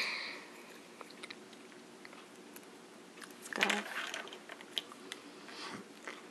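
Small plastic parts of a K'nex Luigi figure clicking and snapping together as they are fitted by hand, with light taps against a wooden tabletop. Short scattered clicks, with a denser run of them about three and a half seconds in.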